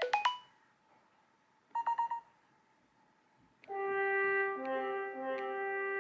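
Classic iPhone text tones playing one after another. A quick run of notes ends just after the start, a second short burst of quick notes comes about two seconds in, then a held brass-like chord of several notes starts just before four seconds in and carries on.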